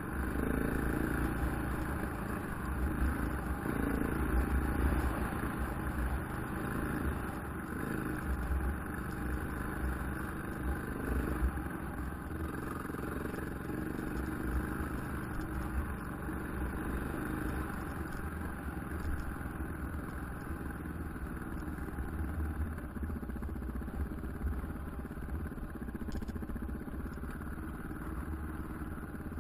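KTM 690 Enduro's single-cylinder four-stroke engine running as the bike is ridden along a dirt trail, steady throughout with slight swells in loudness, over a constant rush of wind and rattle.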